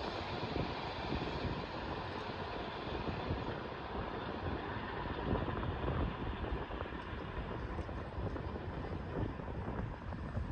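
Freight train passing over a level crossing: a dense rumble and rattle of wheels on the rails, dying away toward the end as the train draws off.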